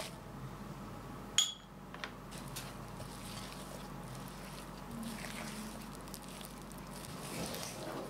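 Silicone spatula folding chopped chocolate into thick red velvet cookie dough in a glass mixing bowl: soft scraping and squishing, with a sharp ringing clink on the glass about a second and a half in.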